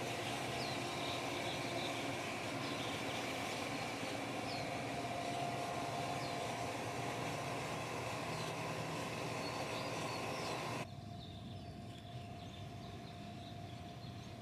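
Steady outdoor background hum with faint, short high chirps repeating about once a second; it drops suddenly to a quieter hum about eleven seconds in.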